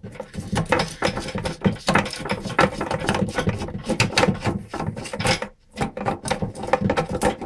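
Plastic tail nut of an old toilet fill valve being unscrewed under the cistern: a run of irregular plastic clicks, creaks and rattles, with a short break about five and a half seconds in.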